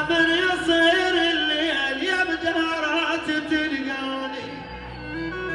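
Music: a man's singing voice rising and falling over steady sustained keyboard or organ tones, the voice fading out near the end while the held tones carry on.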